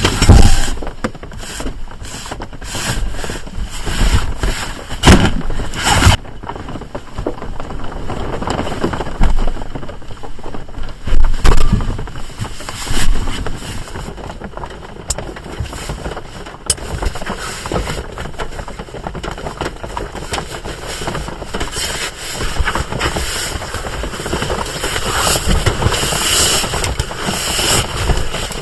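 Rain falling on a small kei van, with irregular knocks, bumps and rustling from the bed being made up inside the van; the knocks come thickest in the first few seconds and again about halfway through.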